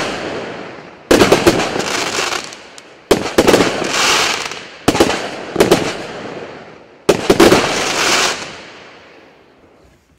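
Klasek Pyromaster 20 mm fireworks cake firing volleys about every two seconds, each a cluster of sharp bangs followed by the crackling hiss of the bursting stars dying away. The last volley comes about seven seconds in and the sound fades out as the cake finishes.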